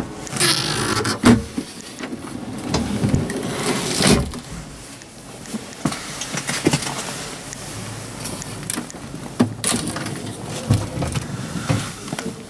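Hands handling a truck cab's built-in plastic fridge drawer and lid, making irregular clunks, knocks and rustles over steady background noise.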